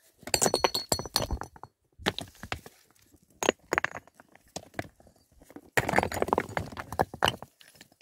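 Knocks and clinks of hard objects being handled, in short irregular clusters, with a brief ringing clink about half a second in.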